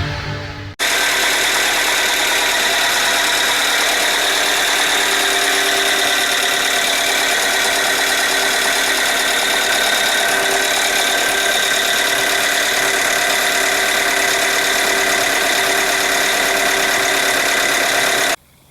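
Hyundai Tucson's 2.0 G4GC four-cylinder petrol engine running steadily with a loud clattering knock from under the valve cover, over a steady whine. The mechanic suspects a rattling CVVT cam-chain tensioner and chain between the two camshafts.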